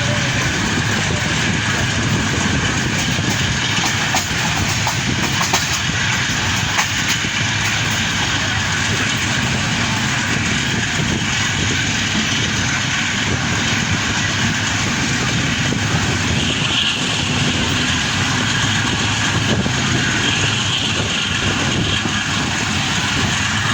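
Passenger train coach running along the track: a steady rumble and rattle of wheels on rails, with a few faint clicks.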